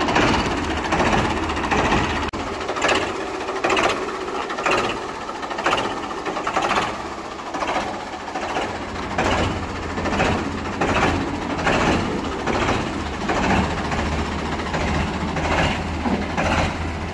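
1994 Ford 3600 tractor's three-cylinder engine running steadily with a low hum, with a regular knock about once a second.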